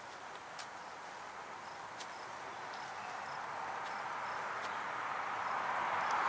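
Outdoor ambience: a steady rushing hiss that swells gradually louder, with a few faint high chirps and soft clicks over it.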